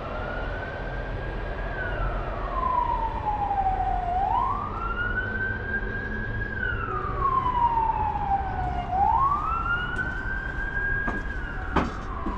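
Emergency vehicle siren wailing, its pitch rising quickly, holding high and then sliding slowly down, the cycle repeating about every four to five seconds. A sharp knock near the end.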